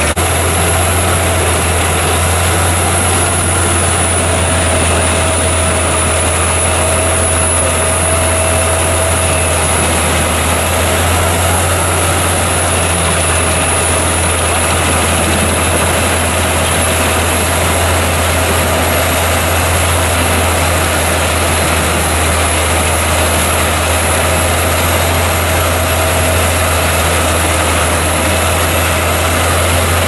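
850 hp Albach Diamant 2000 drum wood chipper running at full load, chipping logs and blowing the chips out through its discharge chute. It makes a loud, steady deep drone with a constant high whine over it.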